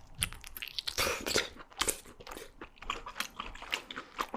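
Close-miked chewing and biting of abalone: rapid, irregular crunchy and wet clicks.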